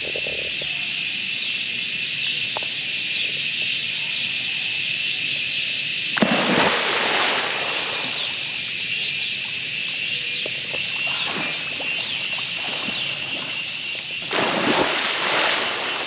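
Cicadas shrilling in a loud, continuous chorus, with water splashing twice in a swimming pool, about six seconds in and again near the end, as someone gets into the pool.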